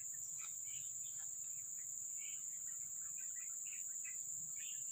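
Steady high-pitched insect drone, with faint scattered bird chirps over it.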